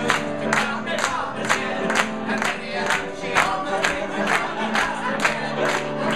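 Instrumental backing music for a comic song, with a steady beat of about two a second over held chords.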